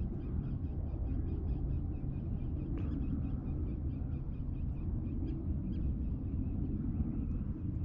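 Outdoor ambience on open water: a low steady rumble with a faint, regular chirping repeating about three times a second.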